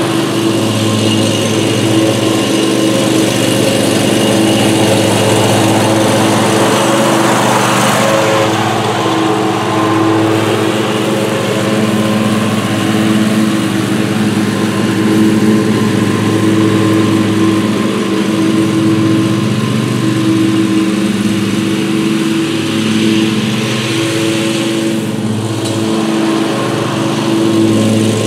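Great Dane Super Surfer stand-on commercial mower running steadily while mowing, its engine holding an even note with small shifts in pitch as it moves across the lawn.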